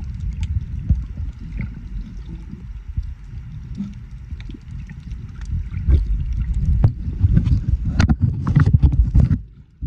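Underwater rumble of water moving over an action camera's housing while snorkeling, with scattered clicks and knocks. It grows louder and busier in the last few seconds, then drops off suddenly near the end.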